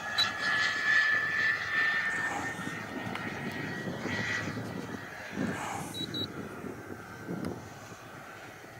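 Kingtech K80F turbine of an RC model jet in flight: a high whine over a rushing noise, fading steadily as the jet flies away.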